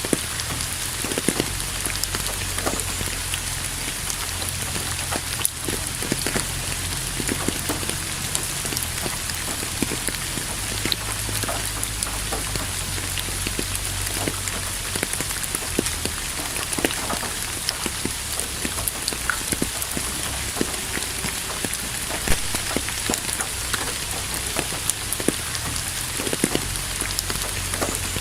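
Steady rain falling on a surface, an even hiss with many scattered individual drops ticking and pattering through it.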